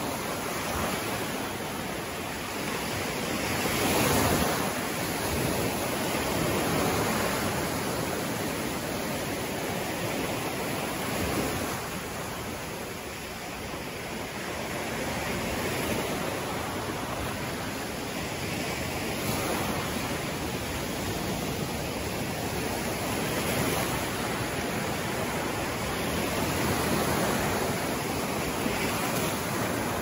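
Small waves breaking and washing up a sandy beach: a steady rush of surf that swells and fades every few seconds as each wave breaks and runs up the sand.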